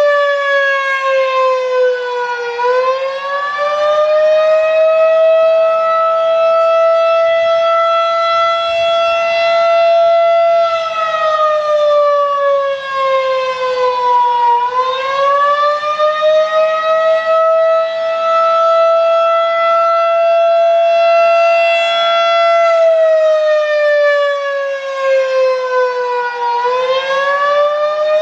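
Federal Signal 2001-DC outdoor warning siren sounding a slow wail. Its pitch holds steady for about eight seconds, sinks over about four seconds, then climbs quickly back up. The low point comes three times, near the start, in the middle and near the end.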